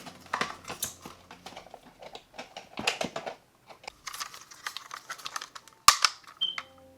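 Plastic clicking and rustling as a smoke alarm is handled, with a sharp click near the end. A smoke alarm then gives one short, high-pitched chirp, the chirp that keeps sounding even though its battery has just been changed.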